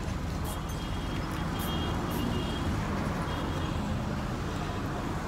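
Steady street traffic noise: a continuous low engine rumble from road vehicles.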